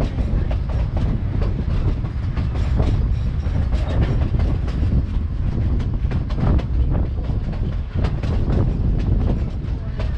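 Narrow-gauge railroad passenger car rolling along the track, heard from aboard. A steady low rumble with frequent irregular clacks and rattles of the wheels over the rails.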